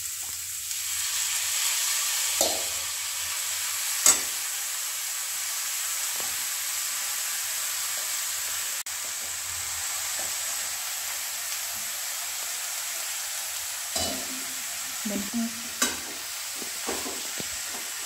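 Chopped radish greens and radish pieces sizzling in a hot metal kadhai while a spatula stirs them: a steady hiss, with sharp knocks of the spatula against the pan a couple of times early and a cluster of knocks and scrapes near the end.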